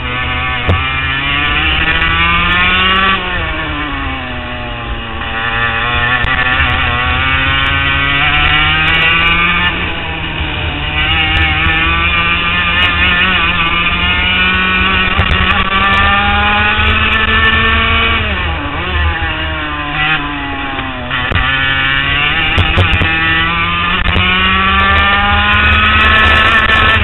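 HPV 100 kart's two-stroke engine at racing speed, the revs climbing steadily along the straights and falling away sharply into the corners, several times: about three seconds in, around ten seconds, and twice near eighteen and twenty-one seconds.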